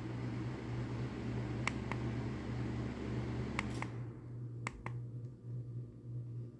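Three pairs of short sharp clicks, like buttons being pressed on a thermostat, over a steady low electrical hum. A rustling handling noise fills the first few seconds.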